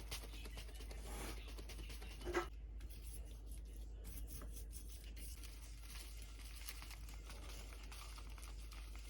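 Faint crinkling and rustling of plastic packaging being handled during food preparation, with one short knock about two seconds in.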